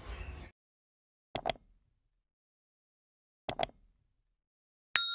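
Subscribe-animation sound effects: two quick double clicks about two seconds apart, then a bright bell-like notification ding that rings on near the end. Faint background sound cuts off about half a second in.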